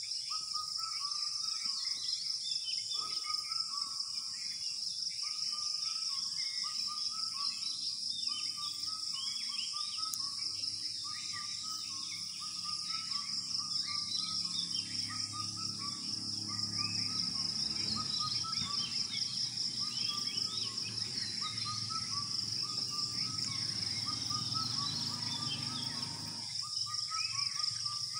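Dawn chorus outdoors: many birds chirping and calling over a steady, high-pitched insect trill from crickets. A low hum joins about halfway through and stops shortly before the end.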